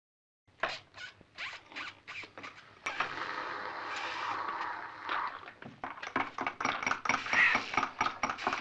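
Soda being sucked through a straw: a run of short slurps, then one longer continuous draw about three seconds in, then a quick string of slurps.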